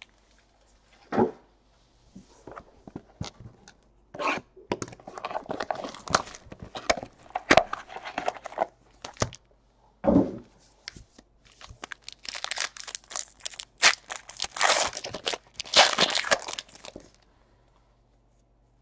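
A trading-card pack's foil wrapper being torn open and crumpled, with scattered clicks and rustles of the cards and packs being handled; the loudest stretch of tearing and crinkling comes in the second half, then it falls quiet.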